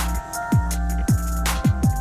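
Electronic background music with a heavy beat: a kick drum falling in pitch on each stroke, sharp snare hits and steady synth notes.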